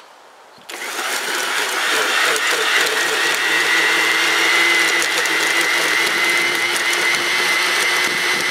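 A corded 12.5-amp Earthworks electric tiller's motor starts up under a second in and runs steadily with a high whine, its tines churning into soil with a scattering of small ticks and scrapes.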